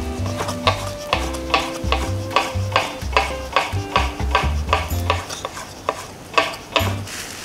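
Chef's knife slicing small Thai cucumbers on a wooden cutting board, quick even cuts about three a second, over light background music.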